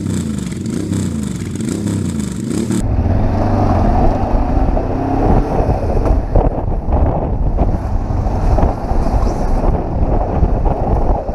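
Kawasaki KLE 500 parallel-twin engine running while the motorcycle is ridden, with wind buffeting on the helmet camera's built-in microphone. The sound cuts in abruptly about three seconds in.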